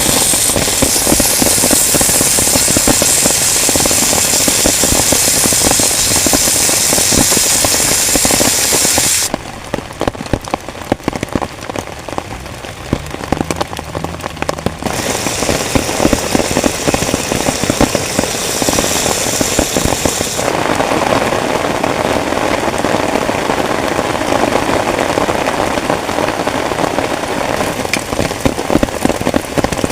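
Heavy rain pattering on a tent, a dense hiss of countless drops. About 9 seconds in it abruptly turns quieter and loses its high hiss, about 15 seconds in the hiss returns, and about 21 seconds in the sound shifts lower and heavier.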